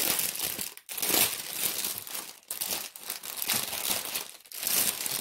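Plastic packaging of a diamond painting kit crinkling and rustling as it is handled, in several bursts with short breaks between.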